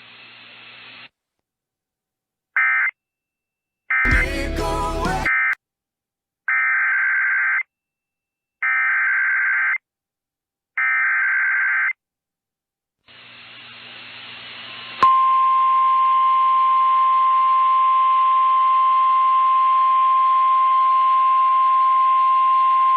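Weather-radio emergency alert between messages: a brief screech and a burst of crackling static, then three roughly one-second screeching bursts of SAME digital header data. After a rising hiss, the steady 1050 Hz warning alarm tone begins about two-thirds of the way in and holds to the end.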